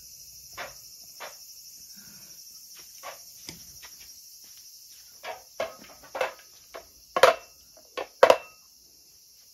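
A cat pawing and scratching at the floor beside its food bowl as if burying the food, a run of short scuffing knocks, the loudest two about 7 and 8 seconds in, after a few lighter knocks earlier. A steady high chirring of insects runs underneath.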